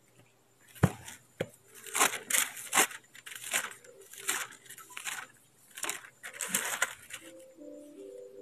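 Thin Bible pages being leafed through by hand: a run of quick paper swishes and rustles, roughly two a second, with a knock about a second in.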